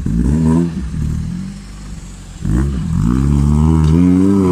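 Off-road vehicle engine revved loudly twice. A first burst of revs rises and falls away; about two and a half seconds in, a second rev climbs and holds at high, wavering revs.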